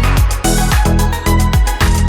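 Background electronic dance music with a steady, driving beat and a pulsing bass line.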